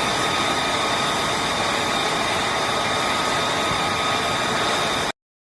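Jet aircraft engine running steadily at idle: an even rush of noise with two steady high-pitched whines through it, cutting off abruptly near the end.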